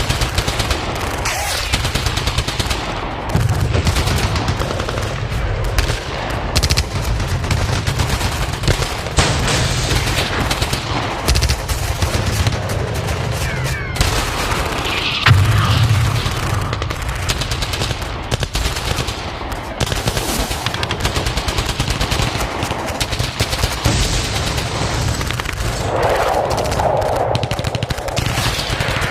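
Battle sound effects: continuous gunfire with rapid machine-gun bursts and scattered rifle shots, with occasional heavier booms. The firing is dense and keeps up the whole time.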